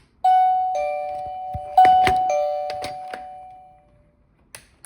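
Plug-in wireless doorbell receiver playing an electronic ding-dong chime, a higher note then a lower one, twice over, ringing on and fading out over a couple of seconds. A few sharp clicks sound during the second chime.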